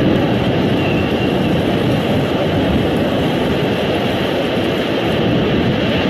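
Loud, steady rushing roar of wind and heavy breaking surf, an even noise with no distinct strokes or tones.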